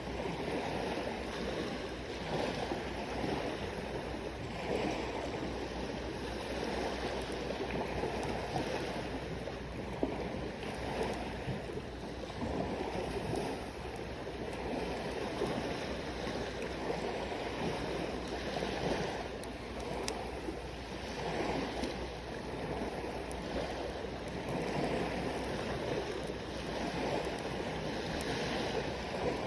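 Sea waves washing in on the shore, the wash swelling and easing every few seconds, with an occasional sharp pop from a wood campfire.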